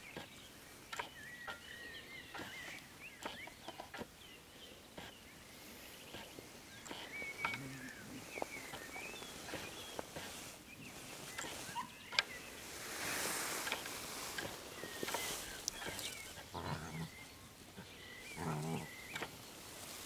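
Puppies and their mother play-fighting, with short low growls and grunts about halfway through and twice more near the end. Through the first half there are high, warbling chirps and scattered clicks.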